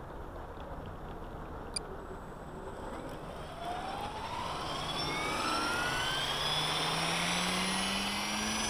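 Kasama Dune 600 radio-controlled helicopter spooling up: from about three and a half seconds in, the motor and rotor whine rises steadily in pitch and grows louder as the head speed builds. A single sharp click comes about two seconds in.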